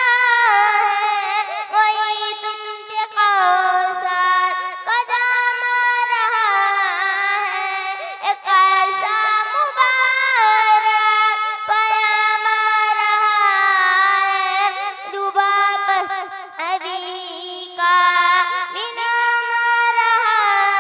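A young girl singing a naat solo into a microphone, with no instruments: long held notes with ornamented turns in pitch, broken by short pauses between phrases.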